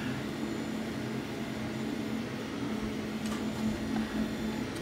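Steady low hum over even background noise, with one faint click about three seconds in.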